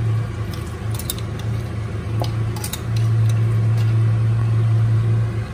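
A steady low hum, with a few light clinks of kitchen utensils against glass or dishes.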